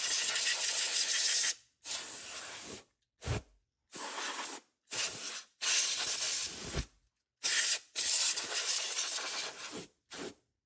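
Compressed air hissing out in repeated bursts, some a fraction of a second and some about two seconds long, separated by short gaps, blowing dust out of an old reel-to-reel tape deck.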